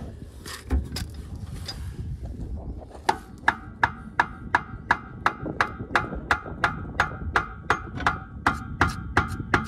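Ratchet wrench clicking as a suspension bolt is run in, a steady series of sharp clicks at about three a second starting about three seconds in.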